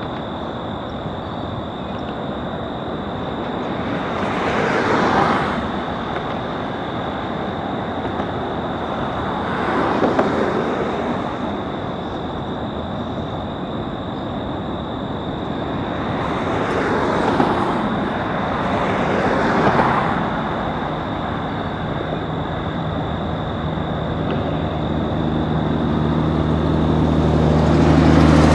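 Steady road-traffic noise, with vehicles passing one after another in slow swells that rise and fade over a second or two, and a thin steady high whine throughout. Near the end an engine drone with a low hum grows louder.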